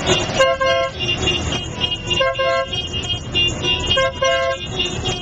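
Vehicle horns tooting over and over in short blasts, often two at a time, about once a second, over the low rumble of motorcycle engines and city traffic.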